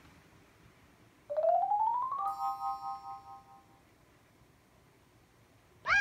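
An electronic tone glides upward for about a second, then rings on as a chord of chime notes that fades out over about a second and a half. A brief high sound with a bending pitch comes at the very end.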